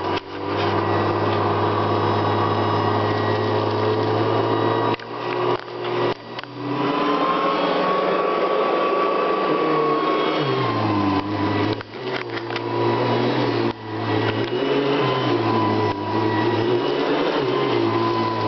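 A Hoover Convertible upright vacuum cleaner runs with its beater brush roll spinning. It gives a steady motor whine whose pitch drifts slightly, with a few brief dips in level.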